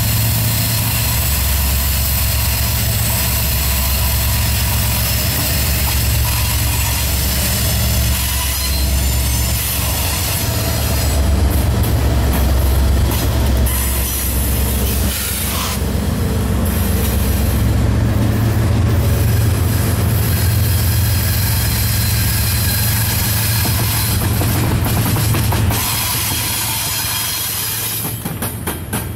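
Norfolk Southern diesel locomotives passing close by, their engines running with a heavy low throb, followed by double-stack intermodal cars rolling past on the rails. The sound eases a little near the end.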